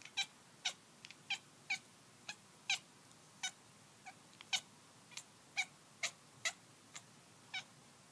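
Kitten giving a long run of short, high chirping calls, about two a second and unevenly spaced, the kind of chirping a cat makes while fixed on prey.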